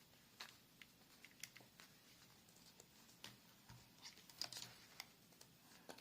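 Faint scattered clicks and rustles of a replacement ear pad being worked by hand and rotated onto an AKG K553 Pro headphone earcup, a little busier about four seconds in.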